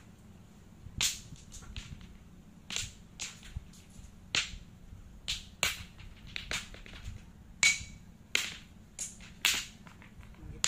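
Thrown stones clacking against beach rocks: about a dozen sharp, separate cracks at uneven intervals.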